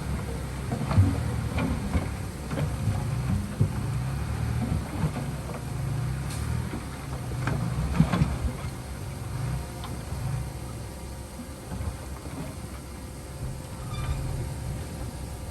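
Diesel engine of a Komatsu D39PX crawler bulldozer running under load, with irregular metallic clanks and knocks, the sharpest about a second in and about eight seconds in.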